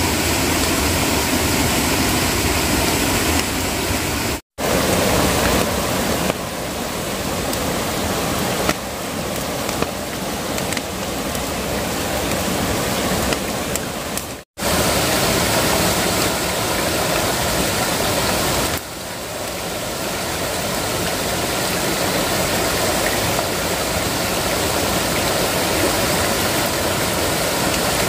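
Steady rushing water of a stream, a dense even noise that cuts out to silence twice for a moment, about four and fourteen seconds in.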